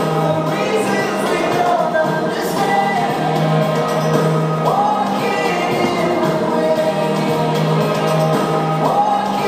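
Music: a song with singing over a steady held bass note.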